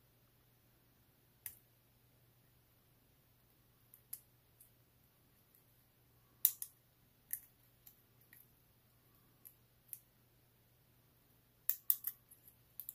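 Scattered small, sharp clicks of fingernails and fingertips working at the CR2025 coin-cell battery and its metal retaining clip inside an open quartz watch case, trying to free the battery. The clicks are irregular, with a quick cluster near the end.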